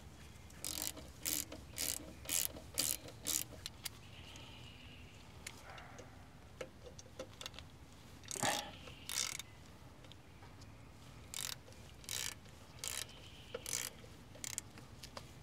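Hand ratchet clicking in short bursts as the brake caliper guide pin bolts are run in: a run of about six strokes in the first few seconds, then another run of strokes from about eight seconds in.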